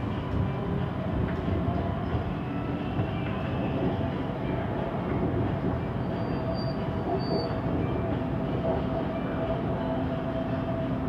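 Siemens Inspiro metro train running at speed, heard from inside the passenger car: a steady rumble of wheels on track with a steady whine held throughout.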